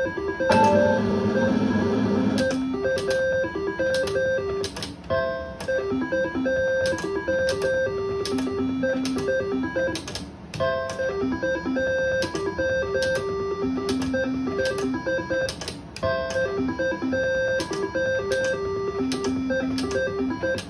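IGT Top Dollar slot machine playing its electronic game music, a looping melody of stepped notes over a steady beat, while its reels spin. There is a louder, noisier whir in the first two seconds.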